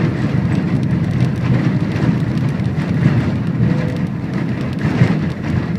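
Steady noise of a horse-drawn tram rolling along its rails, with wind buffeting the microphone.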